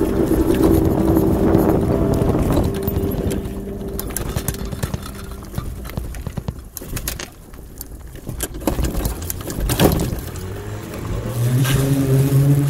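Electric solar tricycle riding along a street: road and rolling noise with many small rattles and knocks from the frame, and a steady hum that fades out about five seconds in. A deeper steady hum comes in near the end.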